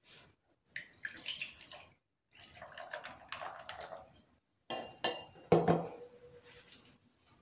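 A drink poured over ice cubes into a glass tumbler in three short spells, with ice and glass clinking. Near the middle of the last spell come two sharp clinks or knocks, the second leaving a brief ring.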